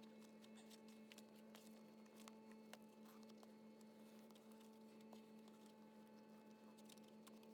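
Near silence: a steady low electrical hum, with a few faint scattered ticks.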